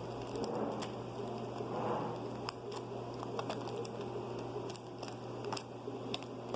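Paper and tape being handled and pressed during a paper squishy craft: soft rustling with scattered small clicks and crinkles.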